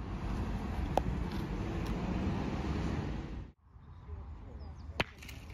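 Steady rushing noise that cuts off suddenly about three and a half seconds in. About a second in there is a single sharp metallic clack of a steel petanque boule, ringing briefly, and near the end another sharp knock.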